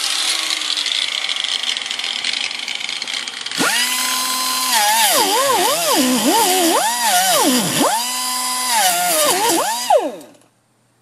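Small handheld grinder cutting a minivan's sheet-metal floor. First a harsh grinding noise, then from about three and a half seconds in a high motor whine that sags and recovers in pitch several times as the bit is pressed into the metal. It cuts off about ten seconds in.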